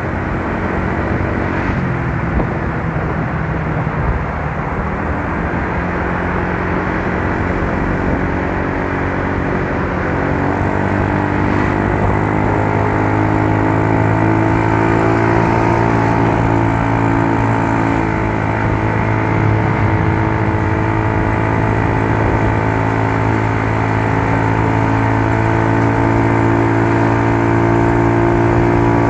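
Yamaha Mio Soul scooter's single-cylinder four-stroke engine running under way, a steady drone that rises a little in pitch about ten seconds in and then holds, growing slightly louder toward the end.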